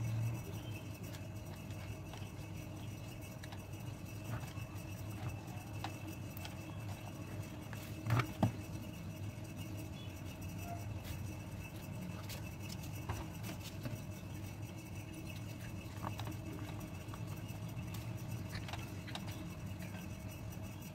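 Rope-covered cardboard discs and small round mirrors being handled on a stone countertop: faint scattered taps and rubs, with two sharper knocks close together about eight seconds in, over a steady low hum.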